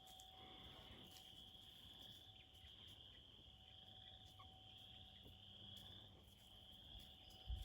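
Faint, steady high-pitched insect trill over near silence, with a soft low thump near the end.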